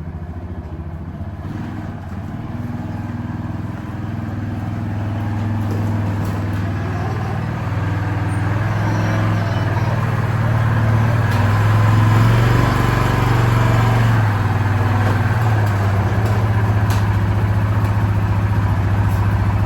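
The single-cylinder engine of a 2006 Yamaha Rhino 450 side-by-side running at a steady speed. It grows louder over the first dozen seconds, then holds even. The owner says this engine has a knock.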